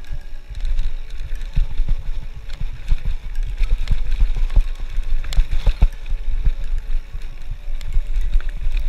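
Specialized Stumpjumper FSR full-suspension mountain bike rolling fast down a rocky dirt trail: constant rattling and clicking from the bike and tyres on loose gravel, over a low rumble of wind buffeting the camera's microphone.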